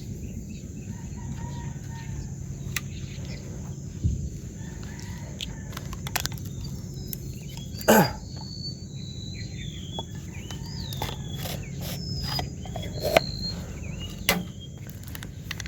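Outdoor ambience by the water: insects buzzing steadily, birds chirping in short calls toward the middle and end, and a low steady rumble, with scattered clicks and knocks and one louder swishing sound about eight seconds in.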